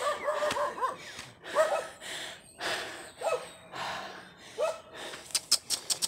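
A man panting hard, with short strained groans on his breaths, out of breath from climbing a steep hill. A few sharp clicks near the end.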